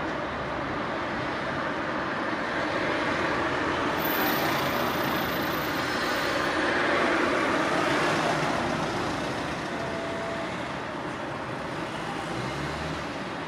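Road traffic: a motor vehicle driving past on the street, its noise rising to a peak about seven to eight seconds in and then fading away.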